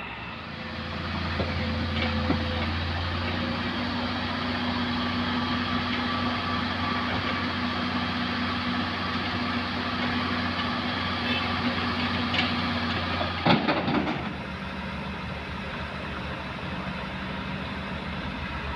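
Heavy diesel construction machinery, a dump truck or excavator, running steadily. About thirteen seconds in there is a short burst of knocks and clatter, and the engine then runs on more quietly.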